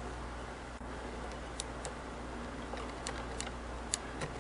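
Faint, scattered light clicks of small metal parts on a Singer 99K sewing machine head as the two take-up studs are worked loose by hand, over a steady low hum. The sharpest click comes near the end.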